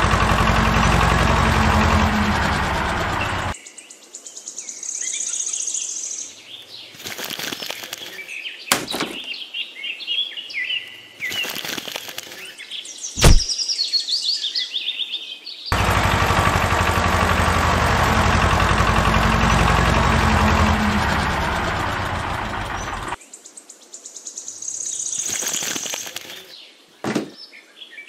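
Steady engine sound of the toy tractor driving, running for about three and a half seconds at the start and again for about seven seconds in the middle. Birds chirp in the quieter gaps, and a sharp crack comes about thirteen seconds in.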